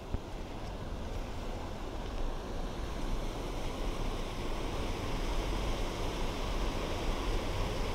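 Parker Creek rushing in white water over rocks and past a concrete diversion structure: a steady roar of water that grows louder about two to three seconds in.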